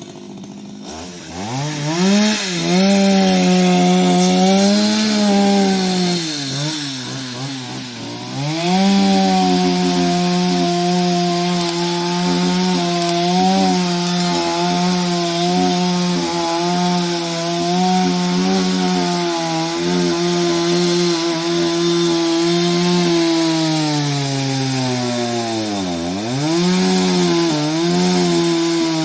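Chainsaw revving up about a second in and cutting wood at high speed. It drops back twice, briefly around six to eight seconds in and again after a slow sag in pitch near the end, then revs up again.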